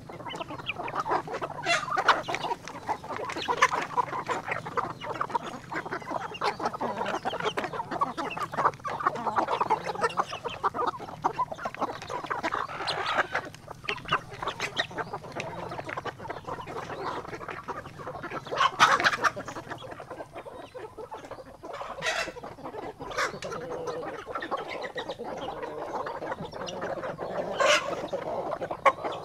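A flock of chickens clucking continuously as they feed, with many small clicks of beaks pecking at grain in a trough and a few louder, sharper calls scattered through.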